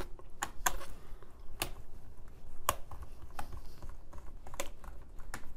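Lenovo IdeaPad G50-70 laptop keyboard being pressed down into its frame by hand: a string of irregular sharp plastic clicks as it is seated and its keys are pushed.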